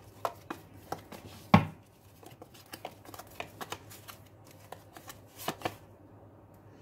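A deck of tarot cards being shuffled and handled, giving scattered soft card slaps and clicks, with a sharper knock about a second and a half in.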